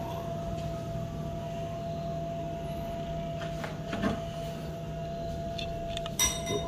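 Espresso machine running steadily with a level hum while it pushes water through a bottomless portafilter. A sharp click comes near the end.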